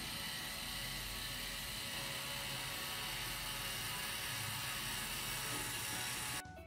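Two Movis L 24 V electric linear actuators extending together, their motors and gearboxes giving a steady whir. It cuts off suddenly near the end as they stop.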